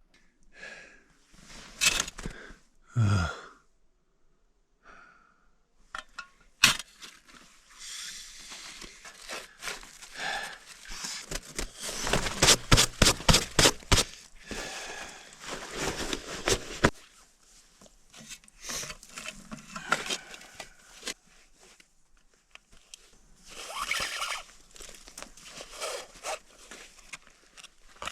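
Hand digging in packed snow: irregular scraping and crunching strokes, with a quick run of sharp strikes near the middle.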